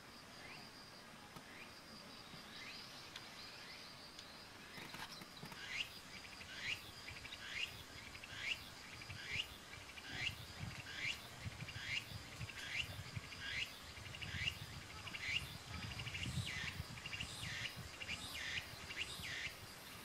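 A small bird calling a long series of short downward-sliding notes, about one a second, faint at first and louder from about a quarter of the way in. Behind it, a faint steady high insect hum.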